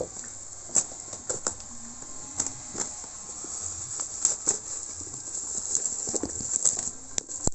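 Bubble-wrap packaging rustling and crinkling as it is cut with scissors and pulled off a cardboard box, with irregular sharp crackles and snips.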